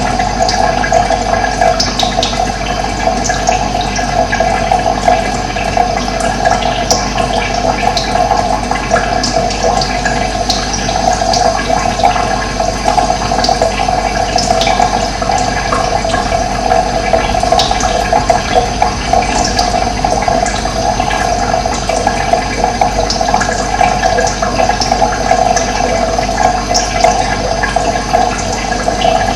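Running water rushing steadily, with short, high bird chirps scattered throughout.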